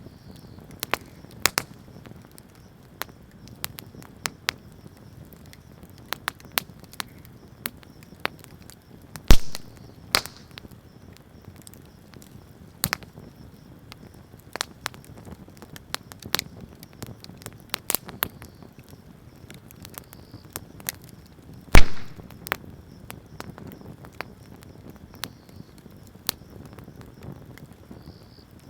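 Wood fire crackling with scattered sharp snaps. Two much louder pops come about 9 and 22 seconds in.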